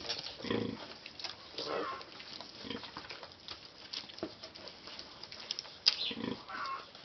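A litter of nursing piglets and their sow grunting softly: a few short grunts spread through, among scattered small clicks and smacks from the suckling. A sharp click about six seconds in is the loudest sound.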